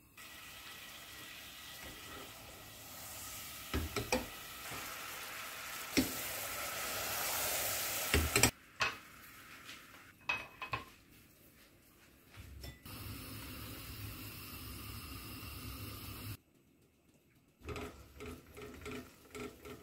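Sugar-and-water syrup boiling in a nonstick pot while it cooks down to caramel, a steady bubbling hiss. There are a few short knocks, and near the end a spatula stirs the now amber caramel.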